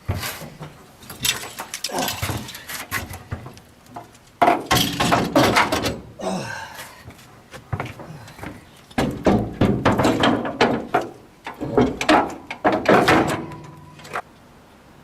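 Repeated knocks, thumps and scraping clatter of heavy equipment being handled and set in place. The busiest runs are about four and a half seconds in and again from about nine to thirteen seconds.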